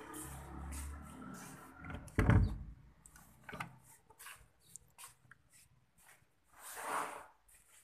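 A dull thump against wood about two seconds in, followed by scattered light knocks and rustling as a kitten is handled close to the phone.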